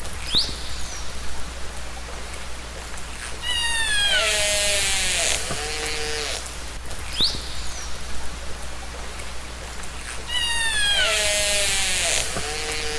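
Killer whale (orca) calls recorded underwater: quick high rising whistles and falling, many-toned squealing calls, repeating about every six and a half seconds over a steady hiss.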